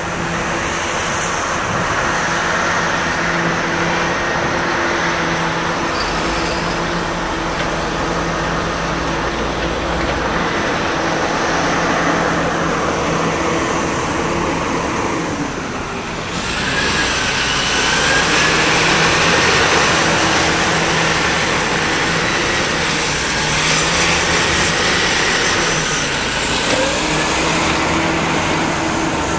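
A machine engine running steadily with a low hum, under broad mechanical noise. About halfway through its pitch sags and breaks off briefly, then the hum picks back up with more hiss and a wavering whine on top.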